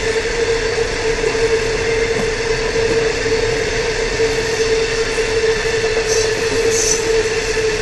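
Long ore train's hopper wagons rolling past on the rails: a steady rumble and rattle of wheels with a constant whine riding over it.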